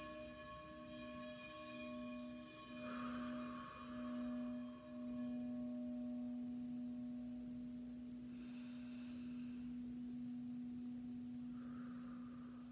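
Soft meditation music: a steady, pure sustained tone that wavers for the first few seconds and then holds even, with bell-like shimmers early on and again about two-thirds through.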